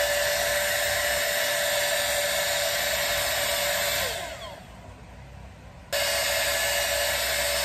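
Stay Young 5-in-1 hot-air hair styler with its curling barrel attached, the blower running with rushing air and a steady whine. About four seconds in it is switched off and the motor winds down with a falling whine, then it comes back on suddenly about two seconds later.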